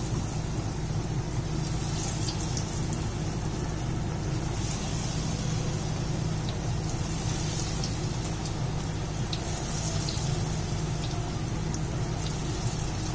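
Besan-battered potato and brinjal slices deep-frying in hot oil: a steady sizzle with small scattered crackles and pops.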